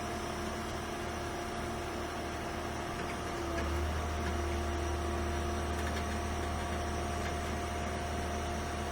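Flatbed tow truck's winch and hydraulics running as the Jeep is pulled onto the bed: a steady mechanical hum with a held whine, the deep hum growing louder about three and a half seconds in as the load comes on.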